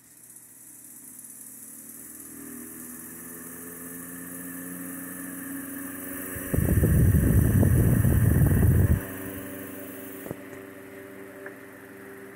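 1922 Singer 9-inch antique electric fan with a quiet iron-cased commutator motor, spinning up to speed with a steady hum and whirr, then slowing near the end. About halfway through, a loud low rush of air buffets for a couple of seconds.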